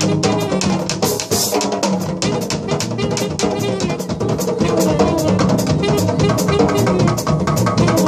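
Live jazz-funk band playing, led by a drum kit and Uruguayan candombe drums (tambores) beating a busy, steady rhythm, with pitched instruments playing over them. A cymbal crash rings out about a second and a half in.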